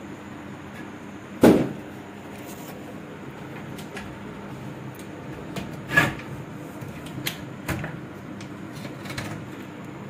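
Aluminium sliding window being handled and pushed shut: a few knocks and clicks from the metal frame, the loudest about a second and a half in and another strong one about six seconds in. A room fan hums steadily underneath.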